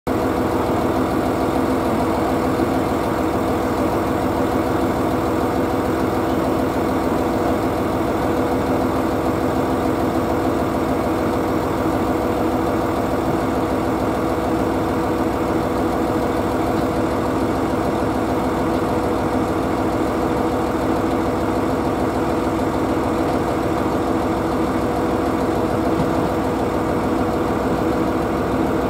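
Diesel railcar engine idling steadily: a constant low hum and rumble that holds the same level throughout.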